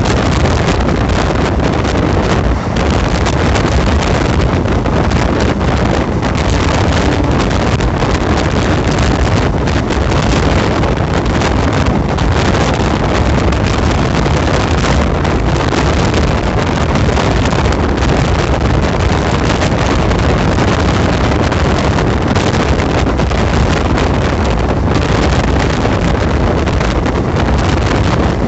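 Loud, steady rush of wind buffeting the microphone over the rumble of a passenger train's wheels running fast on the rails, heard from the open doorway of the coach.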